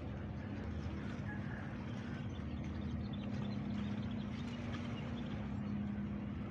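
A ship's diesel engine running with a steady low drone and a constant hum.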